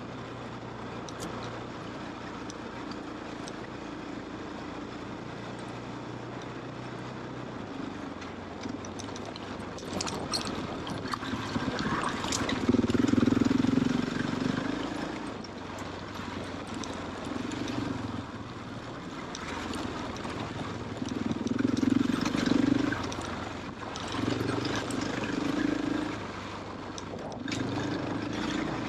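KTM trail motorcycle's engine running at low pace, with the throttle opened in several surges from about a third of the way in, and scattered clicks and knocks over the engine note.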